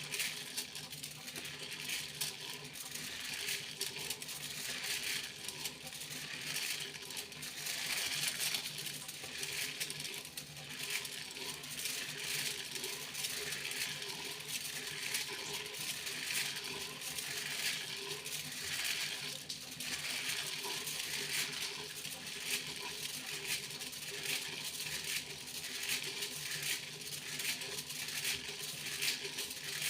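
Foil being crinkled and handled close up: a continuous crisp, crackling rustle of many fine clicks, over a faint steady hum.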